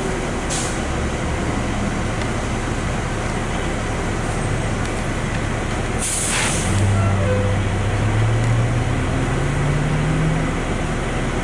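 Interior of a 2001 New Flyer D40LF diesel city bus running as it comes to a stop, with a faint short hiss about half a second in and a loud air-brake hiss about six seconds in. After the hiss a low hum rises slowly in pitch for a few seconds.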